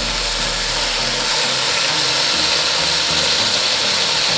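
Chicken breast strips sizzling steadily in hot vegetable and olive oil in an aluminium pot, frying to a golden brown.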